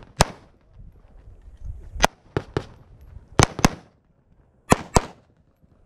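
AR-style semi-automatic rifle firing about eight sharp shots, mostly in quick pairs a quarter-second apart with about a second between pairs.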